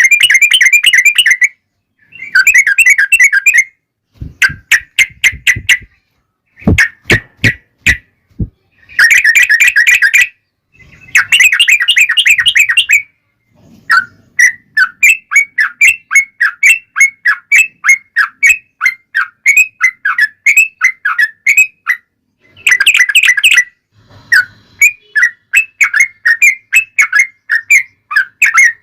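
Yellow-vented bulbul song: loud, rapid bubbling chirps in phrases of a second or two with short pauses, then a long unbroken run of quick notes. About seven seconds in comes a short run of sharp clicks.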